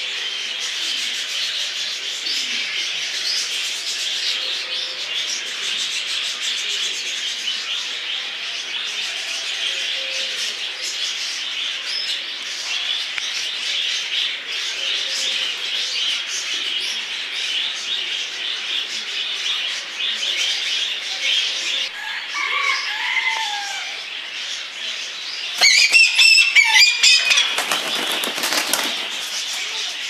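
Many small birds chirping and twittering steadily throughout. About three-quarters of the way through, one bird gives a short falling call. Near the end comes a louder burst of calling with wing flapping.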